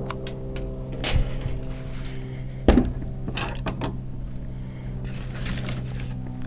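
A steady machine hum with a few sharp knocks and clatters over it, the loudest about two and a half seconds in.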